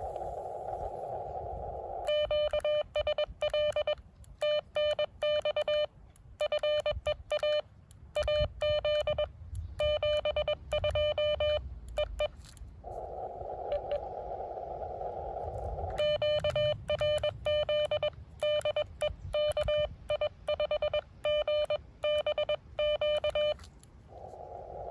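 Morse code sent on an amateur radio transceiver: a steady beep near 600 Hz keyed in rapid dots and dashes, in two long runs about two and sixteen seconds in. Between the runs comes the receiver's band hiss through a narrow CW filter, which drops out while the code is sent.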